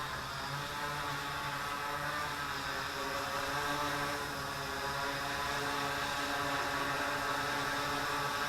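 3D-printed Inspire 1-style quadcopter's electric motors and propellers buzzing steadily in flight, a dense hum whose pitch wavers slightly.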